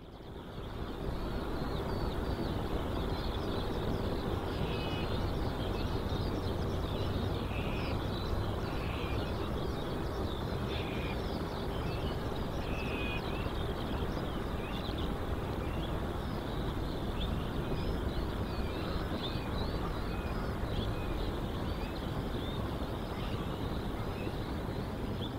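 Outdoor ambience: a steady, even background rumble with small birds chirping repeatedly over it.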